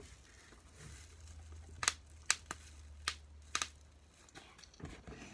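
Handling sounds: about five sharp clicks and taps of plastic in the middle of the stretch, over a faint low hum.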